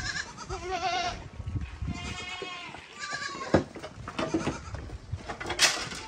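Goats bleating at feeding time, several wavering calls in quick succession, some overlapping at different pitches. Two sharp knocks cut through, the louder about five and a half seconds in.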